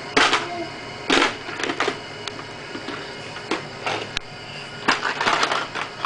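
A baby's hands knocking and patting a plastic talking piggy-bank toy: a dozen or so irregular sharp clicks and knocks, several of them bunched near the end.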